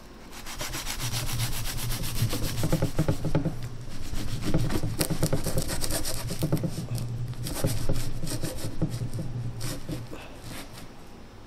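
Chef's knife sawing back and forth through a wrapped shawarma on a plastic cutting board: a rapid, steady rasping of the blade through the crisp flatbread wrap, with a brief pause about three and a half seconds in, dying away near the end.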